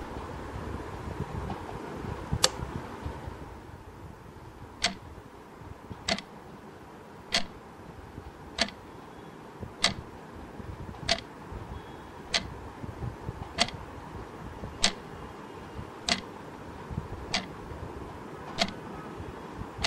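Clock ticking slowly and evenly, one sharp tick about every 1.25 seconds, over a low steady room hum.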